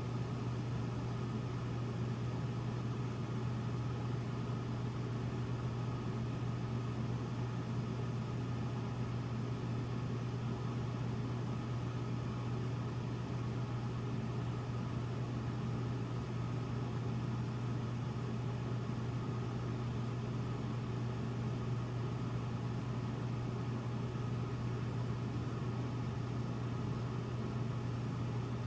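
Hotel room air-conditioning unit running with a steady low hum over an even hiss, like white noise.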